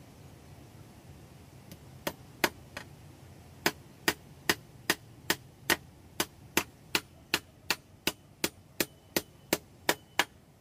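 Claw hammer striking a flat metal piece laid across wooden stumps. A few loose blows come about two seconds in, then steady blows about two and a half a second until near the end. The later blows carry a faint metallic ring.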